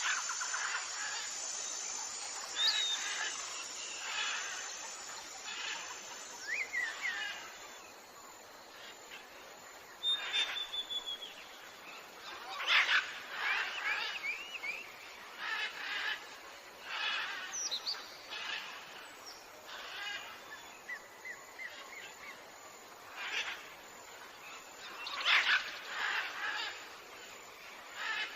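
Several birds calling in turn: short chirps, brief whistled notes that rise or fall, and quick runs of repeated notes, over a faint steady hiss.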